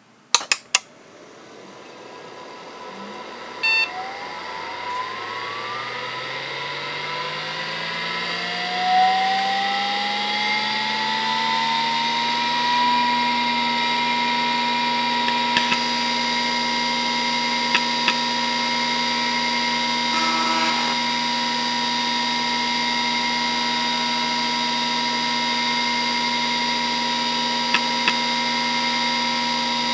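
Hitachi DK522C-10 5.25-inch SCSI hard drive powering up: a few clicks at the start, then the spindle motor spins up with a rising whine over about ten seconds and settles into a steady whine at full speed (3600 rpm). A short beep comes about four seconds in, and faint ticks from the heads come now and then once it is up to speed.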